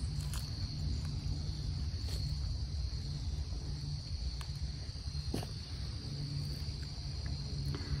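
Steady high-pitched chorus of insects, with a low rumble underneath and a faint click about five seconds in.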